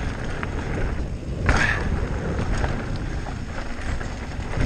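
Wind buffeting the camera microphone over the rumble of an e-bike's tyres rolling down a dirt trail, with a sharp knock about a second and a half in, as the bike hits a bump.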